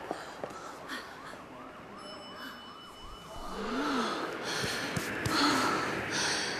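Police car siren in a fast yelp, about four rising-and-falling sweeps a second, for roughly the first three seconds. Then a woman makes a short gasp with breathy voice sounds after it.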